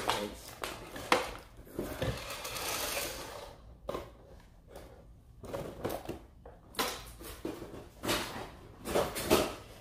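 Clear plastic clamshell packaging crackling and clicking as a PVC statue is pulled out of it, with several sharp knocks as the statue's base is set on a wooden tabletop.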